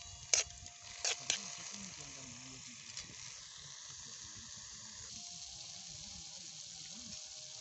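Tomatoes, onions and green chillies sizzling in a metal karahi over a wood fire, a steady hiss throughout. A metal spoon clinks against the pan three times in the first second and a half.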